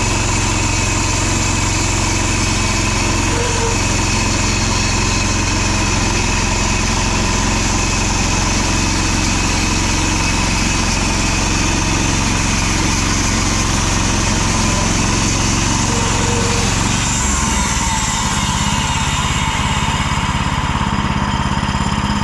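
Woodland Mills HM126 bandsaw mill running on its Predator 20 hp engine while the band blade cuts a log: a loud, steady engine sound whose pitch shifts about seventeen seconds in.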